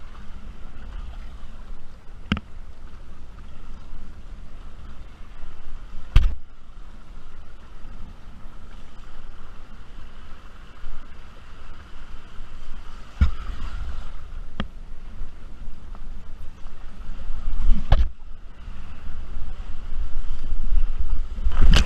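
Wind buffeting the microphone of a wearable camera while wingfoiling, over the rush and slap of water against the board, with a few sharp knocks along the way. Near the end a louder burst of splashing.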